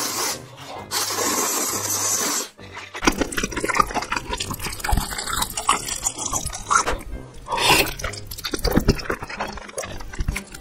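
Noodles being slurped noisily: two long slurps in the first two seconds, then close-up wet chewing and mouth noises with shorter slurps.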